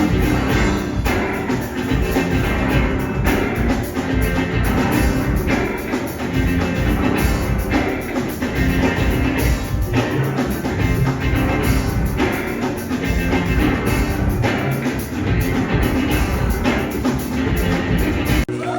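Live rock band playing an instrumental passage with a drum kit driving the beat, the music cutting off sharply near the end as the song finishes.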